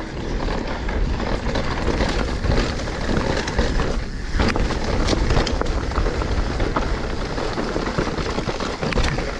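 Mountain bike rolling down loose, dusty singletrack: tyres crunching over dirt, roots and rocks with scattered clicks and rattles from the bike, under steady wind rumble on the microphone.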